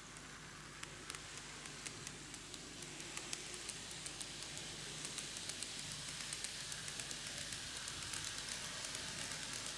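N gauge model train (Greenmax Keio 1000 series set) running on TOMIX track: a steady hiss of wheels and motor with rapid small clicks from the rail joints, growing louder and denser as it approaches.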